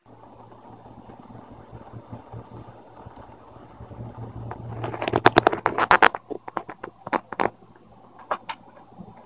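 Clicks and rattles of small hardware and plastic laptop parts being handled during disassembly, with a dense run of rapid clicks about five to six seconds in and scattered single clicks after, over a steady low hum.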